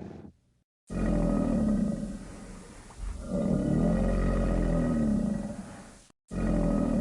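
Crocodile roaring in deep, drawn-out growls, in edited takes. After a brief dead silence near the start, a loud roar begins about a second in and eases off, then a longer roar swells at about three seconds and fades. It cuts to silence just after six seconds, and another roar starts right away.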